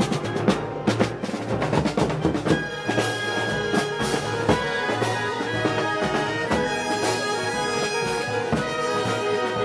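Festival brass band playing Moros y Cristianos music: drums beating, with the brass section coming in on sustained chords about two and a half seconds in.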